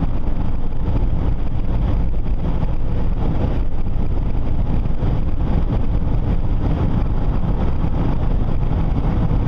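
Steady road and engine noise inside the cabin of a 2001 Chevy Venture minivan driving along, its front wheel bearing freshly replaced.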